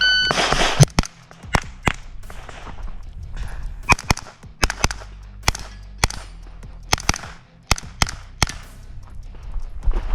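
A shot timer beeps once, then a pistol-caliber carbine fires about twenty rapid shots, mostly in quick pairs with short pauses between, as a practical-shooting stage is run.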